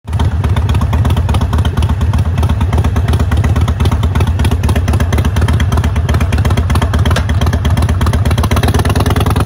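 Harley-Davidson Sportster Iron 883 SuperLow's air-cooled V-twin, fitted with an open air filter, running steadily with a dense, even pulsing exhaust beat.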